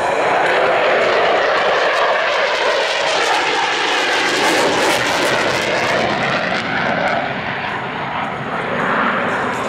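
Loud jet noise from a Boeing F/A-18 Super Hornet's two GE F414 turbofan engines as the jet banks through a pass, a steady rushing sound that eases slightly near the end.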